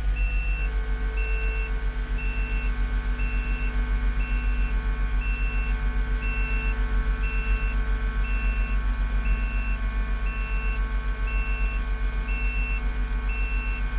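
Backup alarm on a reversing machine, most likely one of the skid steers, beeping steadily about once a second over the steady running of its diesel engine.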